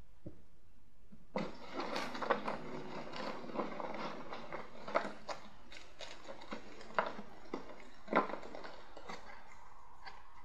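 Off-camera handling noise: a dry rustling that starts about a second in, with scattered light taps and clicks through it.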